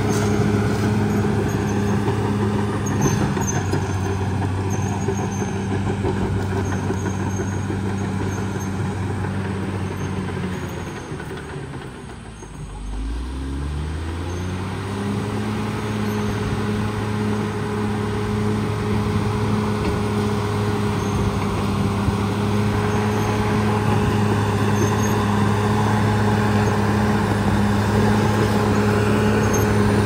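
Caterpillar D6R XL bulldozer's diesel engine running steadily under load as the dozer pushes earth. About eleven seconds in, the revs fall sharply almost to idle, then climb back to full working speed within a few seconds.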